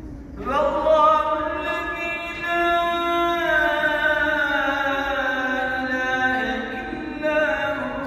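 Solo male voice chanting Qur'an recitation in the melodic mihrabiye style. It is one long melismatic phrase of held notes that comes in about half a second in, slides down in pitch about midway, and shifts again near the end.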